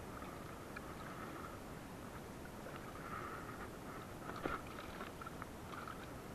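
Faint splashes and wet handling noises as mackerel are picked out of a nylon fishing net against a wooden boat's side, in short bursts, with a sharp knock about four and a half seconds in.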